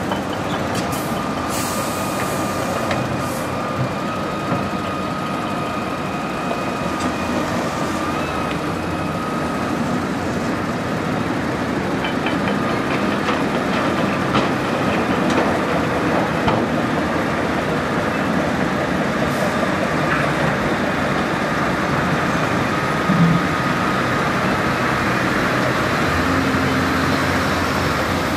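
Hitachi Zaxis 350 LCN excavator's diesel engine and hydraulics running steadily as it digs and swings, with dump truck diesels running alongside. A steady whine sits over the engine noise, and a few short clatters break in.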